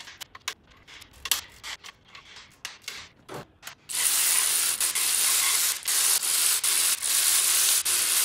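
Scattered clicks and knocks of a tool on a GM 6-litre LS V8 engine block, then about four seconds in a powered ratchet runs loudly in several bursts with brief breaks, spinning out bolts during bottom-end teardown.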